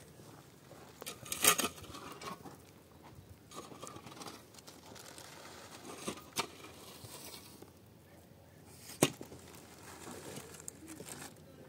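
Rustling and crinkling handling noises, broken by sharp clicks or knocks: a loud cluster about one and a half seconds in, two around six seconds in and a single sharp one about nine seconds in.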